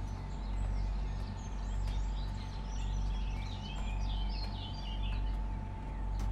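Steady low mechanical hum from the slaughterhouse plant, swelling and fading about once a second, with small birds chirping over it, busiest through the middle.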